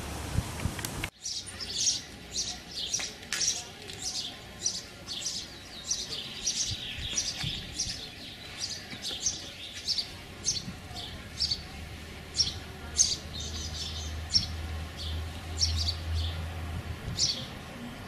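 Songbirds chirping and singing: many short, sharp, high-pitched calls repeating in quick succession. A steady hiss cuts off about a second in, and a faint low hum sits beneath the birds in the second half.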